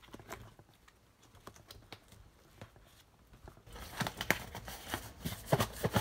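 Cardboard shipping box being handled and opened: scattered light clicks and scrapes at first, then a busier stretch of rustling, scraping and sharp knocks in the last couple of seconds.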